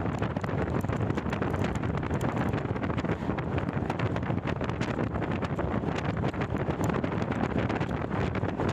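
Wind buffeting a microphone held outside a moving passenger train, over the steady running noise of the train on the track.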